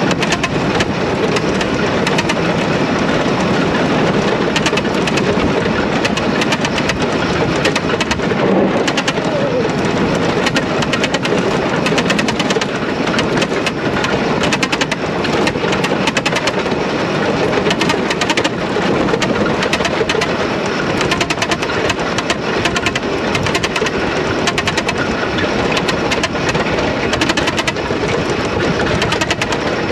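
Racing lawnmower's motorbike-derived engine running hard under load, heard onboard under heavy wind rumble on the microphone. The level stays steady throughout.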